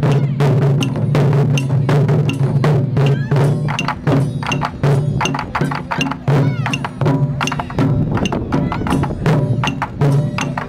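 Taiko drum ensemble playing a fast, driving rhythm on several barrel drums, with sharp clicking strokes among the deep drumbeats.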